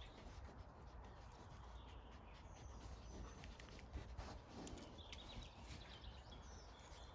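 Near silence: faint outdoor background with a few distant bird chirps.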